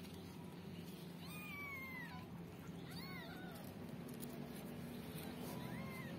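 Newborn kittens mewing: three thin, high cries, the first about a second long and falling in pitch, a shorter one about three seconds in, and another near the end.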